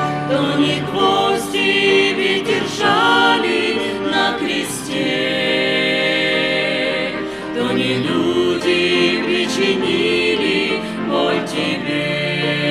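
Mixed vocal quintet, women's voices and a man's, singing a hymn in several-part harmony.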